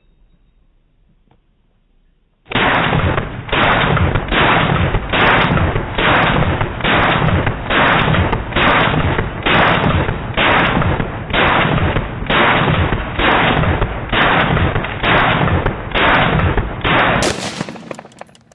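AR-15 rifle firing a steady string of about sixteen shots, roughly one a second, starting a couple of seconds in. Each shot is drawn out over most of a second, and the firing stops about a second before the end.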